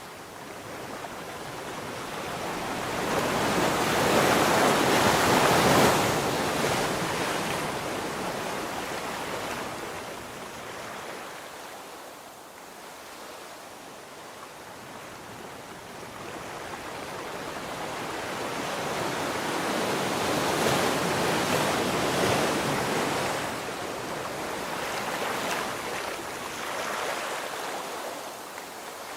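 Sea waves washing onto the shore: a rushing hiss that swells and fades twice, loudest about five seconds in and again about twenty seconds in.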